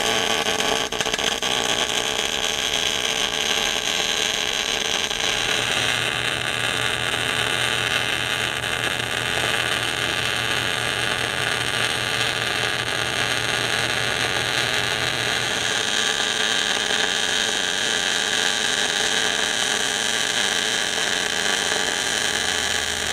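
MIG welder arc burning continuously on steel as a bead is laid with the gun pushed forward, a push weld that drives the wire into the puddle. The arc strikes abruptly right at the start and runs at a steady level without a break.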